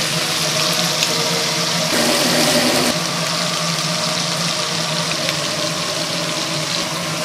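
Steady machine hum and hiss, with a louder rush of noise for about a second, two seconds in.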